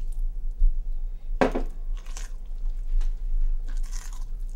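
Cornbread batter being stirred in a bowl: wet squishing and scraping in a few short strokes, with one louder knock about a second and a half in.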